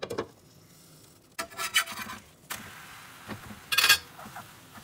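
A glass lid knocks as it is lifted off a flat griddle, then a spatula scrapes across the griddle in several rough strokes, the loudest near the end, as the omelette is worked loose and turned.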